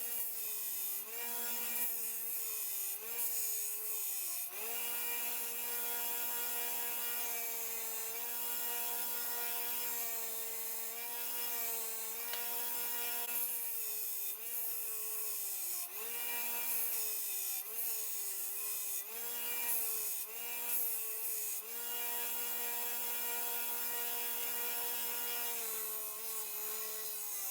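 Electric belt grinder running while a steel knife blank cut from a saw blade is ground against the belt, with a grinding hiss. The motor's steady whine sags in pitch for a moment each time the steel is pressed into the belt, many times over.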